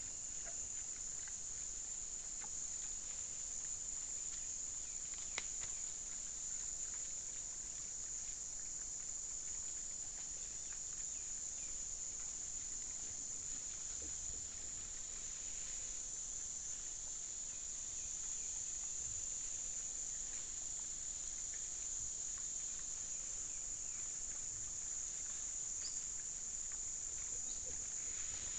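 Steady high-pitched insect drone in the forest, with faint scattered rustles and clicks from peccaries rooting in dry leaf litter and one sharper click about five seconds in.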